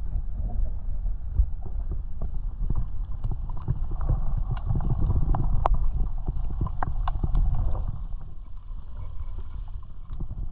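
Sound picked up by a submerged camera: a muffled low rumble of moving water with irregular clicks and knocks, thickest in the middle and a little quieter near the end.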